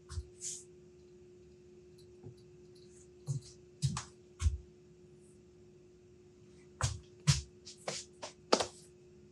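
Steel taper tooling being handled and seated in a lathe tailstock: scattered metallic clicks and a few dull knocks, bunched about three to four and a half seconds in and again from about seven seconds, over a steady low hum.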